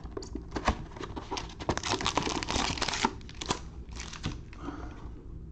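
Foil wrapper of a trading-card pack crinkling and crackling as it is handled and pulled out of its cardboard hobby box, with many small clicks and a dense stretch of crackling about two to three seconds in.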